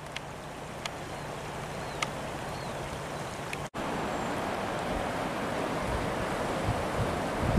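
Floodwater rushing over flooded fields, a steady noise. It gets louder after a cut about halfway through, and wind buffets the microphone near the end.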